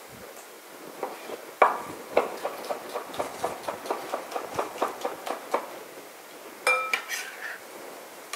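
Chef's knife slicing a cucumber on a wooden cutting board: a run of quick chops knocking on the board, about three or four a second, then a short ringing clink near the end.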